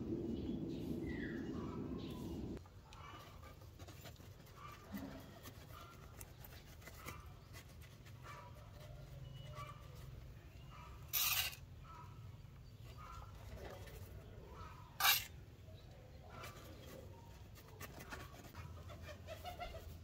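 Quiet handling sounds of loose soil being spooned and packed into a disposable latex glove: soft scrapes and small clicks, with two brief louder rustles around the middle. A low hum stops a couple of seconds in, and faint bird calls come and go behind.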